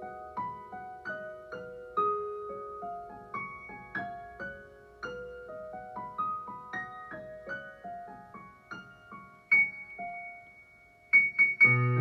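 Improvised solo piano: a melody of single struck notes, several a second, over a sparse accompaniment. After a brief lull near the end, loud chords come in with deep bass notes.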